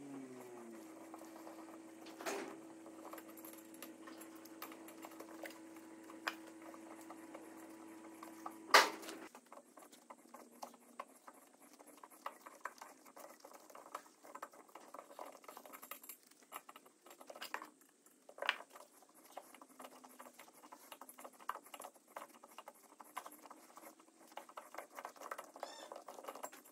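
Hand tap turned with a tap wrench, cutting M10 threads in the steel top plate of a riser block: faint, irregular clicks and scrapes as the tap works round. A steady low hum runs underneath and stops about nine seconds in, just after a sharp metallic click, the loudest sound.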